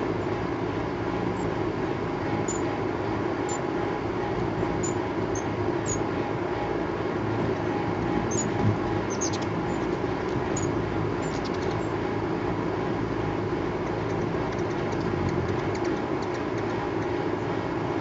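A steady low noise throughout, with short, very high, thin chip calls of ruby-throated hummingbirds scattered over it, a cluster of them in the middle and fainter ones later.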